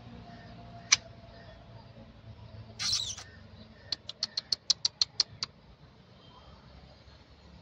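A small animal's high calls: a single sharp click, a short rasp, then a rapid run of about ten sharp chirps, roughly six a second.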